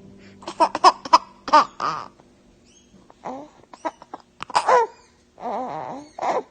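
People laughing in short bursts and giggles, breaking off and starting again in several runs, then stopping abruptly.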